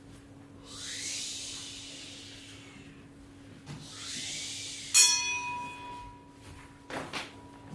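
Evergreen boughs swept through the air, making two swelling whooshes, then a bell struck once about five seconds in, its ring holding for about two and a half seconds; a few light knocks near the end.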